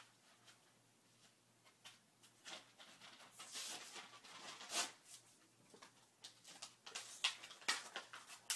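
Faint, irregular rustling and scraping of the plastic packaging of a set of Sharpie markers being pried and tugged at, getting busier after about three seconds.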